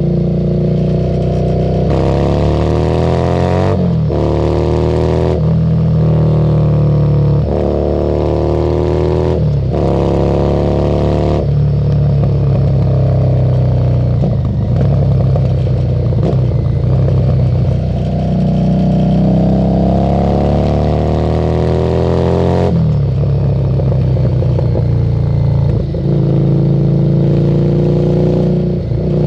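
Harley-Davidson Street 750 V-twin through a Screamin' Eagle exhaust, revving up through the gears with several brief drops in pitch at the shifts over the first dozen seconds. It then holds a steadier cruise before another shift and a rising pull near the end.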